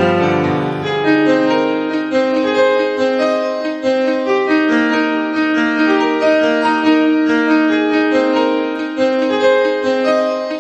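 Background piano music: a steady, unbroken run of notes.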